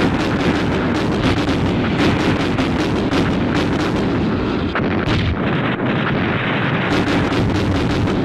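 Battery of field cannons firing in a continuous barrage, shot after shot with no break, over a steady rumble.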